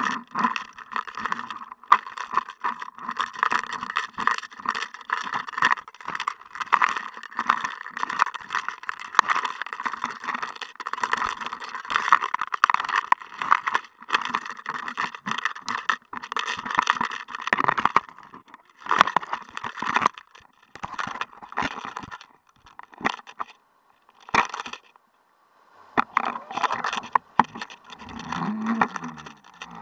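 Rapid, irregular clicking, rattling and scraping of an underwater action-camera rig on a jig fishing line, knocking about as cod strike and tug at the jig. The rattling stops briefly about three-quarters of the way through, then resumes.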